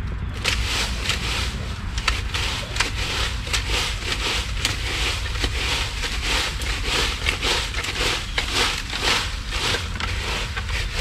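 Dry leaves and debris crunching and scraping in quick repeated strokes, about two a second, over a steady low rumble.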